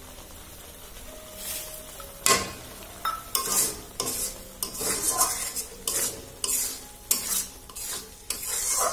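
A metal spatula scrapes and stirs grated carrot halwa in a metal karahi, which sizzles just after the sugar goes in. The scraping starts about two seconds in and comes in short strokes, one or two a second.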